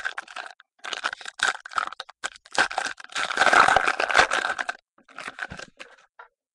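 Trading cards and foil pack wrappers being handled: crinkling and rustling broken by small clicks, loudest for about two seconds midway.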